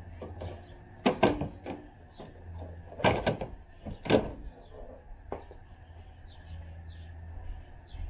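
A Suburban's running board being pried and pulled off the side of the truck: a few sharp cracks and snaps as it comes loose, the loudest about a second in and around three and four seconds, with a weaker one at about five and a half seconds.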